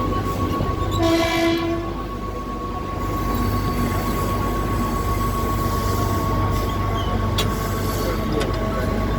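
Train running with a steady low rumble and a thin steady whine, and a short horn blast about a second in.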